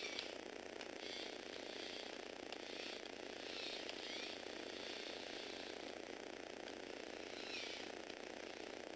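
Small Lego Technic electric motor and plastic gear train running steadily as the model bike drives, a whirring gear noise with a few brief higher whines.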